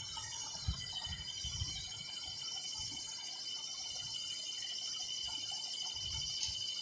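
Crickets chirring steadily at a high pitch, with a few faint low thumps.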